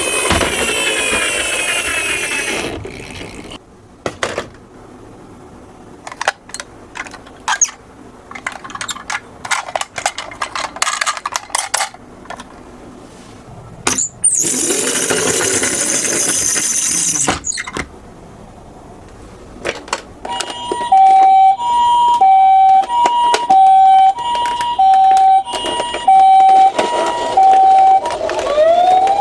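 Toy ambulance's electronic siren. It opens with a loud sweeping wail that stops about three seconds in. Light clicks and knocks of the miniature cars on the slope follow, then a loud noisy stretch in the middle. For the last third a high-low two-tone siren alternates about one pair every second and a half.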